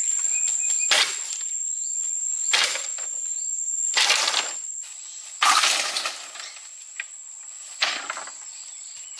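Bamboo being chopped and split with a blade: five sharp cracking strikes about a second and a half apart, the one about halfway through longer with a drawn-out splintering crackle.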